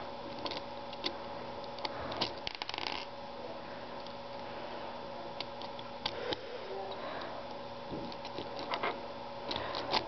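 Plastic pieces of a partly assembled 5x5 Rubik's cube clicking and scraping as they are worked and slid into place by hand: scattered light clicks in a few clusters over a steady low hum.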